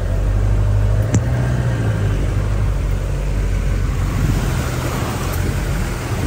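Vehicle engine and tyre noise heard from inside the cabin while driving a rough dirt road, a steady low rumble, with a single sharp knock about a second in.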